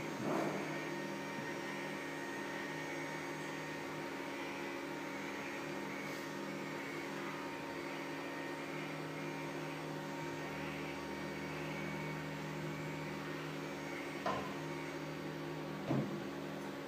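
Electric TV lift motor running steadily as it lowers the TV mount down into a bookcase cabinet, a steady hum. Brief knocks just after the start and twice near the end.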